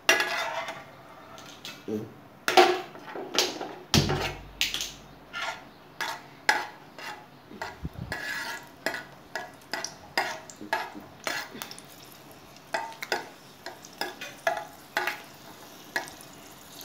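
Steel ladle stirring cashews and raisins roasting in ghee in a nonstick kadai, with irregular clinks and scrapes against the pan and frying sizzle beneath.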